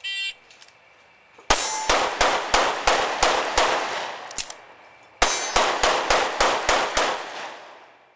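Shot timer beep, then an Open-division race pistol fired in rapid strings of about eight and seven shots, separated by a pause of under a second. The last shot falls about seven seconds after the beep, matching the 6.99-second stage time.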